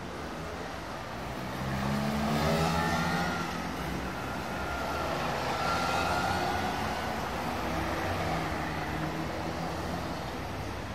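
Heavy city-centre road traffic with cars and trams, engines swelling as vehicles pass close about two seconds in and again about six seconds in. A high, thin whine sounds over the traffic twice.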